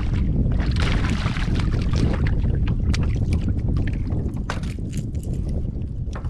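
Wind buffeting the microphone on a kayak on open water: a steady low rumble with scattered short clicks and ticks, and a brief rush of hiss about a second in.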